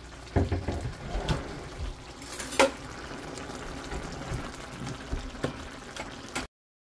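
Vegetable sauce simmering in a pan, a liquid bubbling sound with scattered low knocks and one sharp click about two and a half seconds in. The sound cuts off abruptly near the end.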